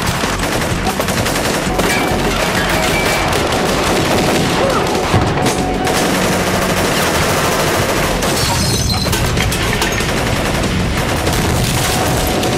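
Film shootout gunfire: a dense, continuous barrage of rapid shots with many overlapping, bullet hits throwing sparks.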